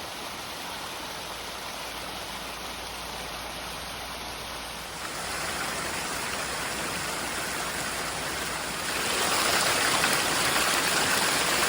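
Steady rushing of running water, stepping louder about five seconds in and again about nine seconds in.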